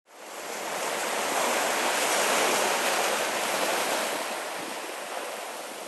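Ocean surf foaming and washing over shoreline rocks, a steady rush of breaking water. It swells up over the first second and slowly eases toward the end.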